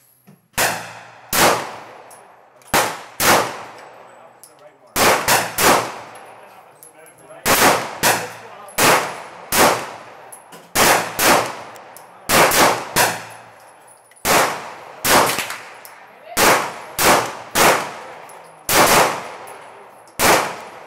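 Shots from a 9mm Glock pistol fired one after another, about one a second at uneven intervals, each sharp crack trailing off in an echo.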